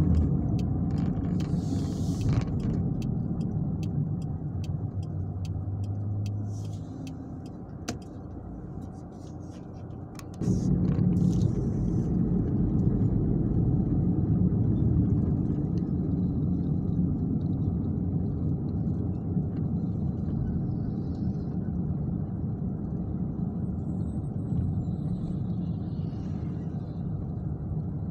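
Road and engine noise heard inside a moving car's cabin: a steady low rumble that eases off for a few seconds about a third of the way in, then comes back abruptly. A run of light, evenly spaced ticks sounds during the first few seconds.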